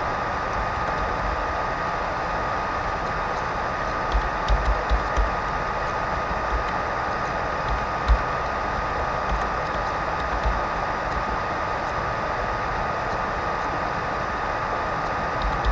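Steady hiss from the recording microphone with a thin steady whine underneath, and a few soft thumps from keyboard typing, a quick cluster about four seconds in and a single one near eight seconds.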